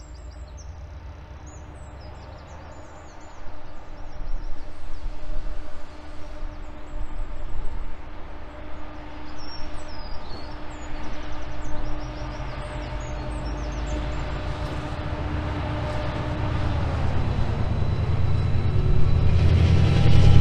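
A TransPennine Express Class 68 diesel-electric locomotive (Caterpillar V16 engine) approaching with its train: a steady low hum from the locomotive, then a rumble of engine and wheels on the rails that grows steadily louder and is loudest near the end as it draws level. Birds chirp at first.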